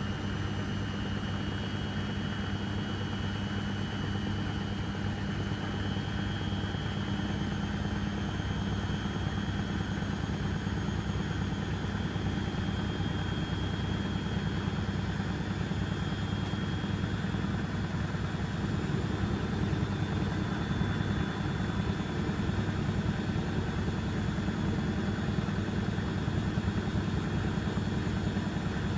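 Beko washing machine running, a steady motor hum with a faint high whine that edges slightly higher in pitch. It gets a little louder past the halfway point.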